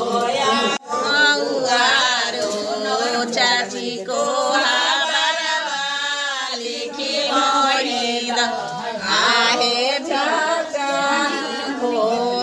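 Several women singing a Bhojpuri wedding folk song together, with no instruments. The sound breaks off sharply for a moment under a second in.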